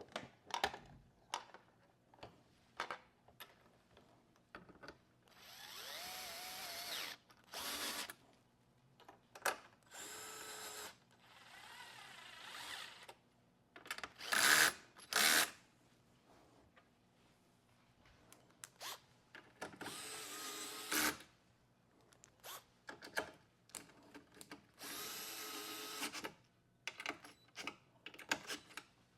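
Cordless drill-driver with a hex bit running bolts in, in about seven short runs of a second or two each, between clicks and knocks of the tool and parts being handled.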